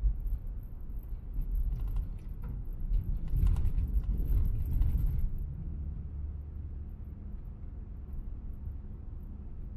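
Car driving along a road, heard from inside the cabin: a steady low rumble of tyres and engine, with a few seconds of light clicking and rattling about two to five seconds in.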